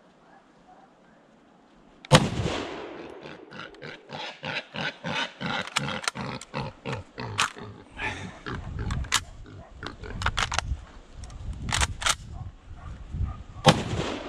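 Two loud gunshots from a hunting gun, one about two seconds in and one near the end, each with a long rolling echo. Between them comes a fast run of crashing sounds at about two or three a second, with a few sharper cracks.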